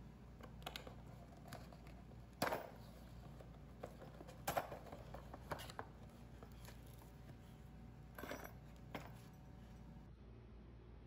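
A small cardboard box of flat-pack furniture fittings being handled and its flaps opened: scattered light knocks and scrapes, the loudest about two and a half and four and a half seconds in.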